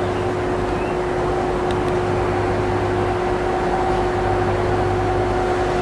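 Steady machine hum holding one constant tone, with a faint click just under two seconds in.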